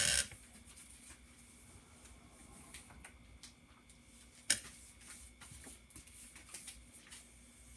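Vinyl record sleeves and a loose plastic outer sleeve being handled, with faint rustling and a few light ticks and one sharp knock about four and a half seconds in.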